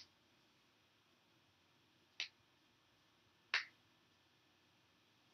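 Quiet room tone with three short, sharp clicks: one right at the start, one about two seconds in, and one about a second and a half after that.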